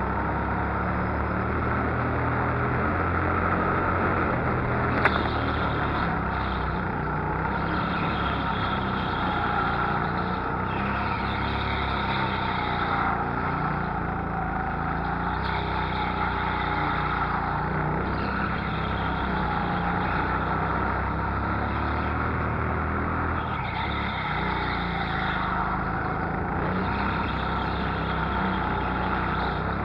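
Go-kart engine running under way, heard from on board, its revs rising and falling as the kart is driven round the track. A single sharp knock about five seconds in.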